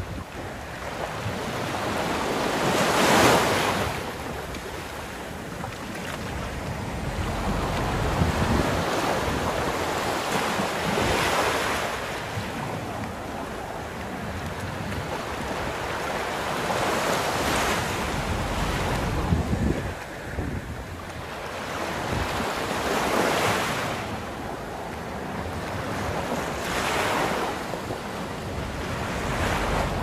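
Sea waves breaking and washing onto a sandy beach, the surf swelling and fading every four to six seconds, with wind buffeting the microphone.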